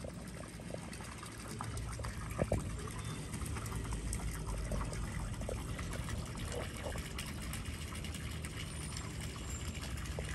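Water pouring steadily from an outlet in the side of a damaged 53-foot Carver motor yacht's hull and splashing into the water below. This is the discharge of water pumped out of the hull after the boat hit bottom.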